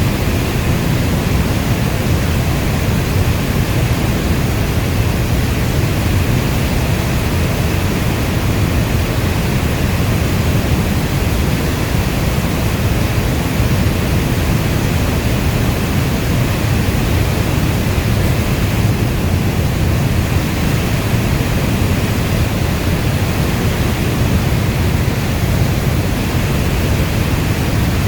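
Heavy rain falling steadily: an even, dense rush, strongest in the low end, with no thunder or single drops standing out.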